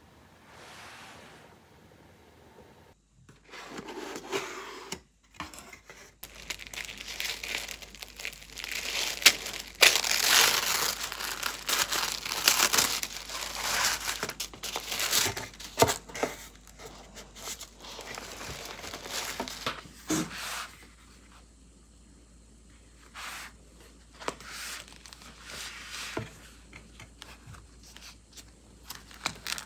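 Tissue paper crinkling and rustling as a wrapped ring-binder album is unpacked from a cardboard box, starting a few seconds in and loudest in the middle. Softer rustles and light taps follow as the album is handled near the end.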